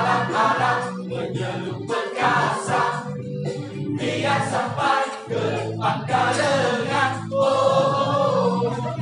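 Song with a choir of voices singing over instrumental backing, in phrases broken by short breaths.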